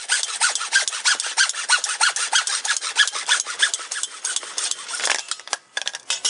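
Hacksaw cutting through 1.5-inch PVC pipe with quick, even back-and-forth rasping strokes. The sawing stops about five seconds in, followed by a few short knocks.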